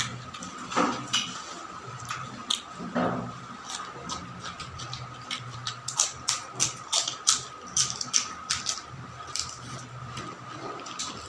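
Close-up eating sounds: a person chewing with many short wet mouth clicks and lip smacks, most frequent in the middle, over a steady faint hum.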